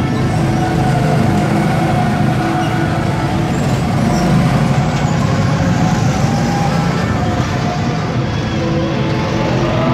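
Several go-kart engines running as karts circle the track, with engine notes rising and falling. They get louder as a pack of karts passes close by about four seconds in.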